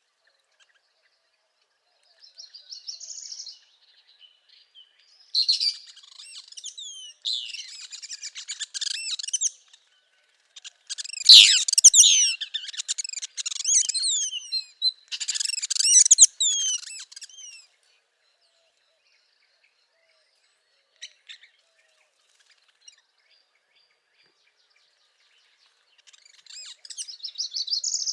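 Northern parula singing: a series of high, rapid song phrases, loudest and densest around the middle, then a pause before another phrase near the end.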